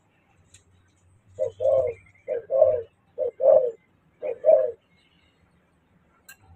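Caged dove cooing: four two-note phrases, a short note then a longer one, about one a second, beginning a little over a second in.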